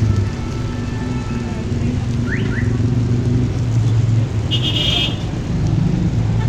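Street traffic noise: a steady low engine rumble, with a short high-pitched tone about four and a half seconds in.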